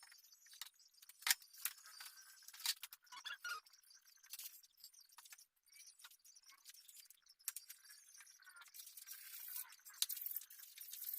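Scattered light clicks and clinks of small hard objects being handled, with soft rustling and scraping between them. The sharpest clicks come about a second in, near three seconds, and about ten seconds in.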